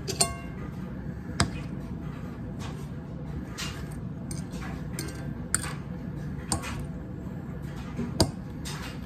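Metal fork clinking and scraping against a ceramic plate while cutting an omelet: about five sharp clinks, the first ringing briefly. Soft chewing noises come between them.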